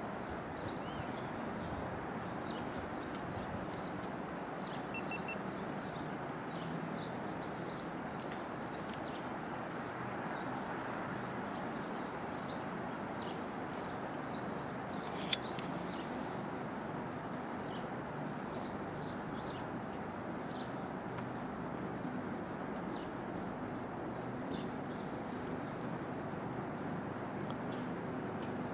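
Outdoor winter park ambience: a steady hum of background noise with scattered short, high bird chirps throughout, and a few sharper chirps or clicks standing out briefly.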